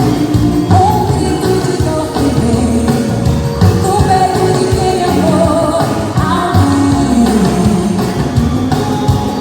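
Upbeat pop-rock song with a singing voice and a steady beat, played loud for a dance-fitness class.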